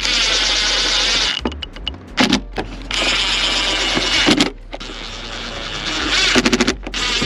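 Cordless drill-driver with a Torx bit, set to its lowest clutch setting, running in several bursts as it drives the grille screws home. Near the end comes a quick row of clicks, the clutch slipping as a screw reaches the set torque.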